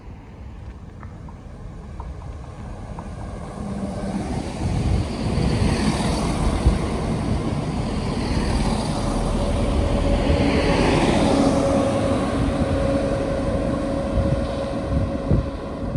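ScotRail Class 170 Turbostar diesel multiple unit pulling into a station platform and passing close by, its engines running and the noise building as it draws alongside. A steady whine sets in about halfway through and carries on as it slows.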